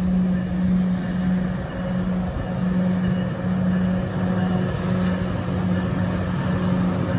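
NJ Transit ALP-45DP locomotive approaching with a multilevel train, running on its diesel engines. It makes a steady, loud low drone over a rumble.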